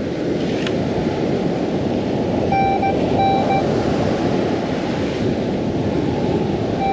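Beach metal detector sounding a strong-target tone: two short groups of beeps about two and a half and three seconds in. Under them, steady surf and wind noise on the microphone.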